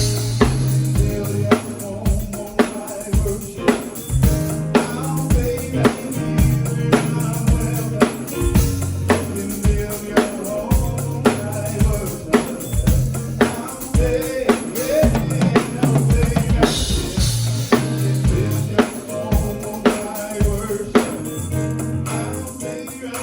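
Music driven by a drum kit, with bass drum, snare and rimshot hits in a steady beat over a bass line.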